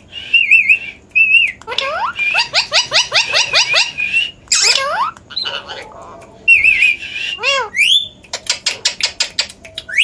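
Indian ringneck parakeet calling: wavering chatter and squawks, with a fast run of short rising notes, about four a second, in the middle.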